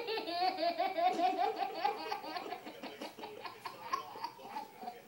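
High-pitched child's laughter: a run of quick, rhythmic laughs that trails off into shorter, quieter ones.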